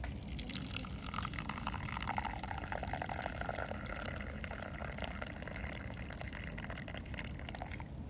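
Water pouring in a steady stream from a bottle into a clear Tritan plastic teapot onto loose sencha leaves, splashing and filling the pot, stopping shortly before the end.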